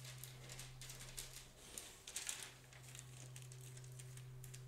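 Faint, brief scratchy strokes of a palette knife scraping and dabbing acrylic paint onto the paper surface, over a steady low hum.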